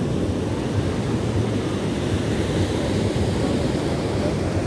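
Surf washing on a beach, with wind buffeting the microphone: a steady low rumble.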